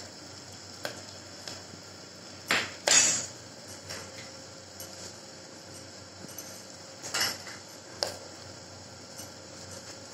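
A handful of scattered metal clinks and knocks from a spoon and cookware against an aluminium pressure-cooker pot, the loudest a pair about three seconds in and two more around seven and eight seconds in, over a low steady hiss.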